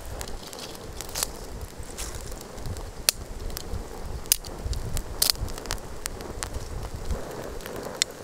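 Open wood fire of twigs and branches crackling, with irregular sharp pops.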